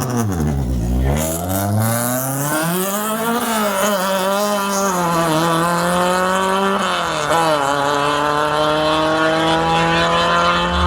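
Race car engine accelerating hard, its pitch dipping at first and then climbing steadily, with brief drops at gear changes about a third and two thirds of the way through.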